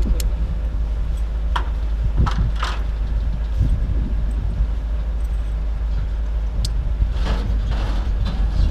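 Wind buffeting the microphone as a steady low rumble, with a few sharp clicks and short rustles scattered through it.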